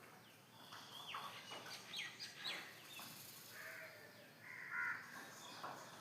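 Faint bird calls: scattered short chirps and quick falling whistles, with a louder, harsher call a little before five seconds in.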